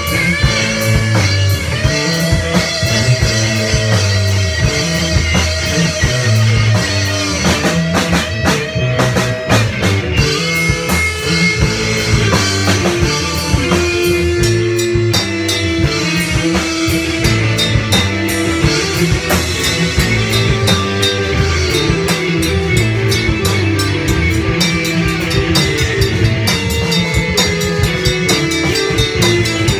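Rock band playing live: electric guitars with held, sustained notes over a drum kit with cymbals, at full tilt without a break.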